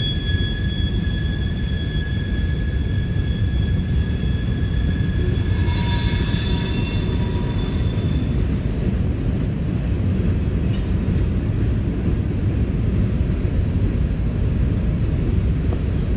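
CSX freight train's hopper cars rolling past with a steady low rumble of wheels on rail. High-pitched wheel squeal rings over it through the first half, shifts to a new set of pitches about five seconds in, and stops about eight seconds in.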